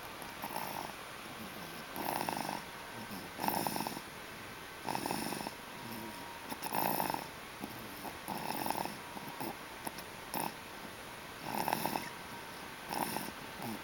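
Little boy snoring loudly in his sleep, a noisy snore every second or two.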